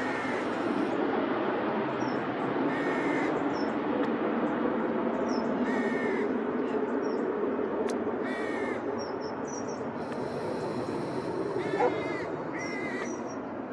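Crows cawing about six times, short harsh calls a few seconds apart, over a steady low rumble of distant aircraft engine noise, with faint small-bird chirps.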